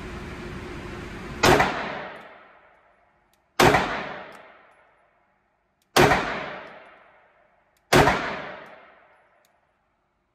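Four shots from a Shadow Systems XR920P compensated 9mm pistol, about two seconds apart, each followed by a long echo in an indoor range.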